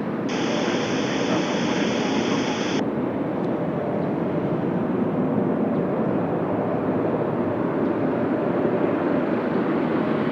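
Jet airliner's engines on approach to land, a steady rushing noise that grows slightly louder. A separate high hiss stops sharply about three seconds in.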